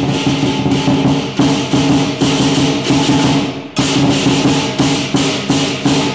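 Lion dance percussion playing the Heshan drum rhythm: a large Chinese barrel drum with clashing handheld cymbals and a gong, the cymbals crashing about three times a second, with a brief break nearly four seconds in.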